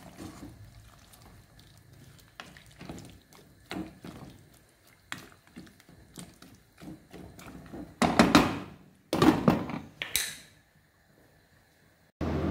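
A wire whisk and a wooden spoon stirring chicken stock in an aluminium pot, with light scrapes and taps. About eight seconds in, three louder knocks of utensils against the pot follow, the last one ringing briefly. Right at the end a steady hum starts suddenly.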